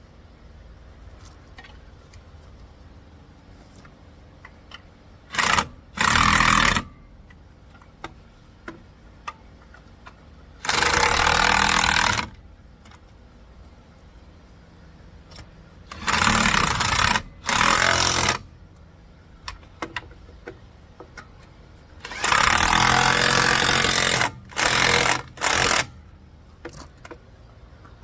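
Impact wrench running in about eight bursts of half a second to two seconds, in four groups, running lug nuts onto a dually rear wheel. Small metal clicks come between the bursts.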